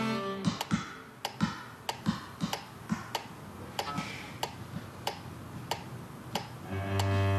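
A basketball being dribbled on a hard floor: a run of sharp bounces, roughly two a second and a little uneven. A held cello note breaks off just at the start, and low cello notes come back in near the end.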